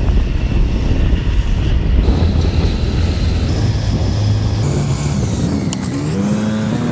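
Motor scooter being ridden, its engine running under a heavy low rumble. About four and a half seconds in, the engine note climbs steadily in pitch as the scooter speeds up.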